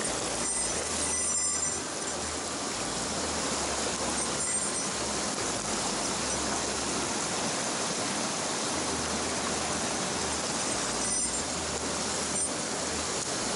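Steady rushing of a mountain stream's water, with a few faint ticks.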